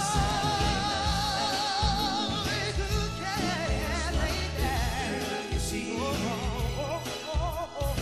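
Live soul music: a lead vocalist holds a long note with vibrato, then breaks into quick ornamented runs over the band's steady beat.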